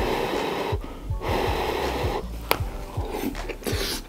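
Close-up eating sounds: loud breathy slurps and sharp breaths in and out through the mouth, in several stretches, while biting into and chewing a big piece of beef knee cartilage (dogani). Background music plays underneath.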